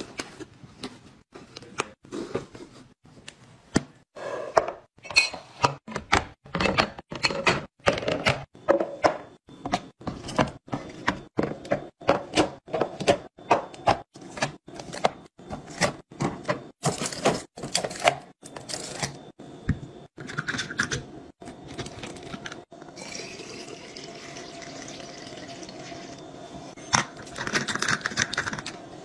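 Household items and packaging being handled and set down while restocking: a quick, irregular run of taps, clicks and knocks, giving way past the middle to a few seconds of steady hiss before the handling noises pick up again near the end.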